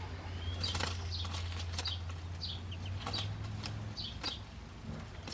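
Muscovy ducklings peeping, a dozen or so short, high, falling peeps scattered through, with light rustling and pecking as they tug at bindweed leaves. A low steady hum stops about four seconds in.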